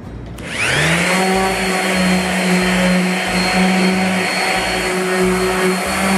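Electric orbital sander starting up about half a second in, its motor whine rising quickly to a steady pitch, then running steadily while sanding a whiskey barrel stave, with a low throb that comes and goes about once a second.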